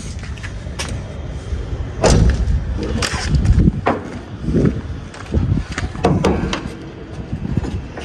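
A series of dull thumps and knocks with sharp clicks between them as the bonnet of a 2001 Nissan Patrol is unlatched and handled open.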